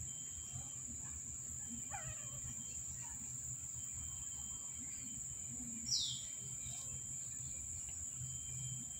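Quiet ambience: a steady high-pitched insect drone over a low hum, with one short, high chirp falling in pitch about six seconds in.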